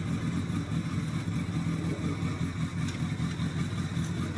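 A combustion engine idling steadily with a fast, even pulse.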